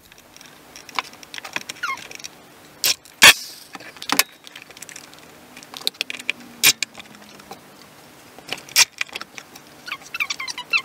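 Metal pocket-hole screws clinking and rattling in a plastic tub as they are picked out by hand, with several sharp knocks and clicks. The loudest knock comes about three seconds in.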